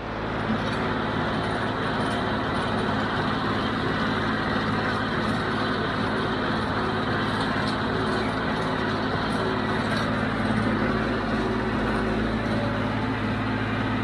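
John Deere 5055D diesel tractor running steadily under load while pulling a John Deere 348 small square baler through windrowed hay, with engine hum and mechanical clatter from the working baler.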